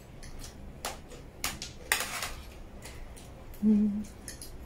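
Forks and spoons clinking and scraping against a plate and a metal tray while eating, with a few sharp clicks and a longer rustling, slurping burst about two seconds in. A brief hummed 'mm' from a voice comes near the end.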